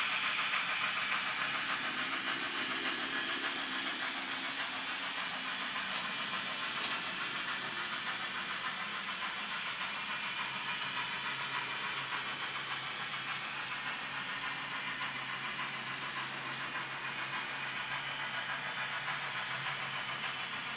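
N-scale model of Union Pacific steam locomotive 844 and its passenger cars running on the layout track: a steady rushing rolling sound with a few faint clicks and a low hum, slowly growing quieter as the train moves away.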